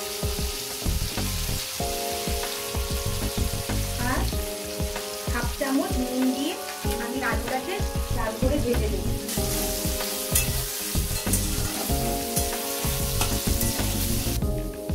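Potato cubes sizzling as they fry in hot mustard oil in an iron kadai, a steady hiss that grows brighter about nine seconds in. Background music with held notes plays under it.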